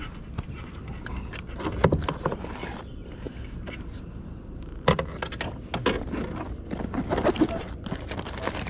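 Irregular knocks, taps and rustling from handling a fish and gear aboard a plastic kayak, in clusters over a steady low background. A bird gives a short falling whistle three times.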